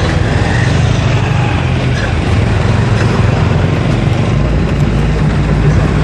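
Motor vehicle noise: a loud, steady low rumble of engines and road noise.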